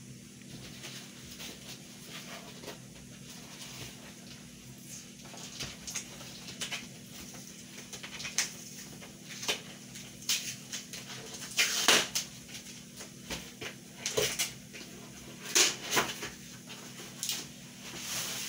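Cardboard shipping carton being opened by hand: irregular scraping, rustling and tearing of cardboard and packing tape, with the loudest rips around twelve and sixteen seconds in.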